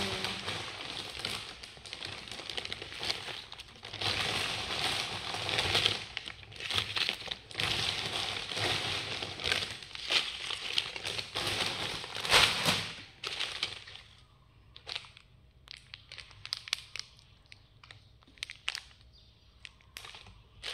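Plastic wrappers on small wrapped sweets crinkling as hands sort and arrange them, a dense rustle for about the first thirteen seconds that then thins to scattered crackles.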